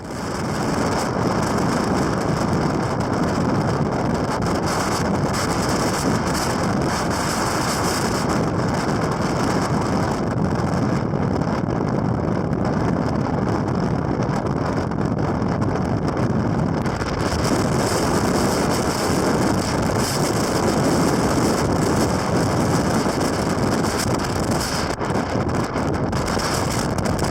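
Strong wind blowing hard across an exposed ridge, buffeting the microphone with loud, steady wind noise.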